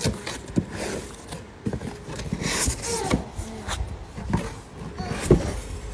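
Cardboard shipping box being opened by hand: flaps and cardboard scraping and knocking, with crumpled kraft paper packing rustling, in a string of short irregular knocks and rustles.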